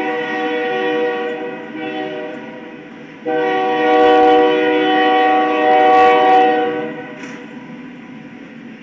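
Locomotive air horn sounding two long, steady blasts. The first trails off about two seconds in. The second, louder one starts abruptly about three seconds in and holds for nearly four seconds.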